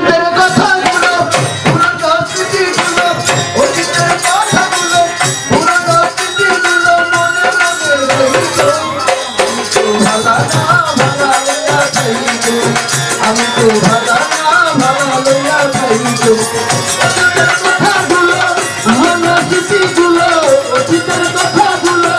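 A male voice singing a Baul folk song through a microphone, accompanied by drums and hand percussion.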